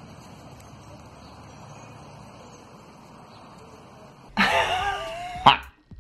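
Faint steady background hiss, then about four seconds in a man bursts into loud laughter.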